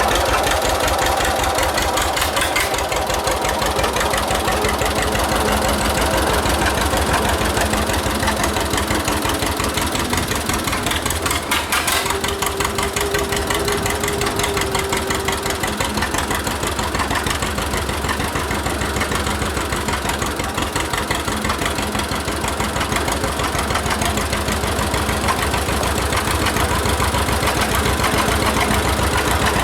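1946 John Deere AR's two-cylinder engine running with a steady, rapid pulsing exhaust beat as the tractor is driven uphill under light load.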